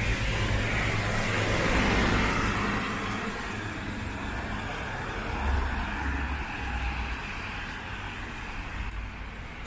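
Road traffic on a wet road: one passing vehicle's tyre hiss swells to a peak about two seconds in and fades, over a steady low rumble.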